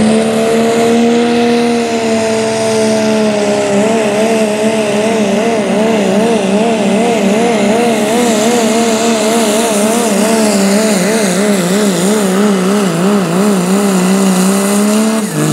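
Turbocharged diesel engine of a 1970s Ford pickup pulling a sled at full power, held at high revs. From about four seconds in, the revs waver rapidly up and down, and they drop off suddenly near the end as the pull finishes.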